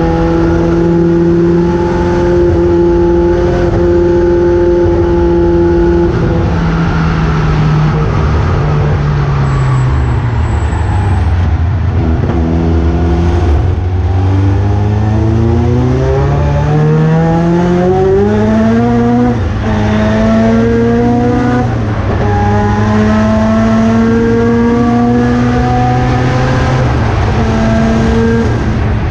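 1979 Mazda RX-7's rotary race engine under racing load. It holds high revs, then the revs fall away for several seconds as the car lifts off. It climbs again through the gears, with upshifts about two-thirds of the way through, and settles at a steady high pitch near the end.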